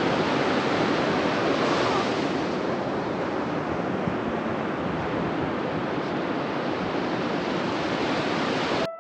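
Ocean surf washing onto a beach, a steady rush of waves with some wind on the microphone; it cuts off suddenly right at the end.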